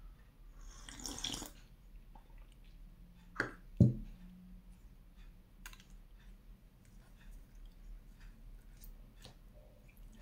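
A short rustle, then two knocks about three and a half seconds in, the second the loudest with a brief low ring, as a glass mug of ginger tea is set down on the table. Faint clicks and handling sounds follow as the dosa is picked up from the plate.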